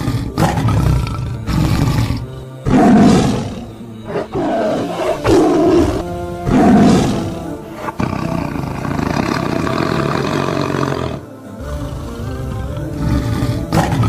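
Lions roaring and growling in several loud calls, the loudest about three and seven seconds in, over background music.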